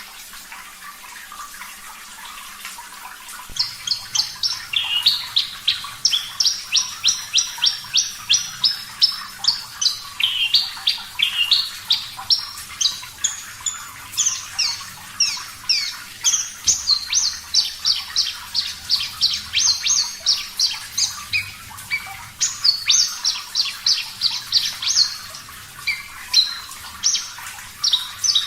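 Running water hissing, then about three and a half seconds in a Javan bush lark (branjangan, parva race) starts singing over it: a fast, loud run of short, sharp, high notes, about two a second, that continues without a break.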